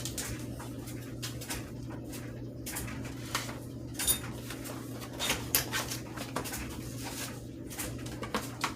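Scattered clicks, taps and light rattles of small parts and packaging being handled, over a steady low hum.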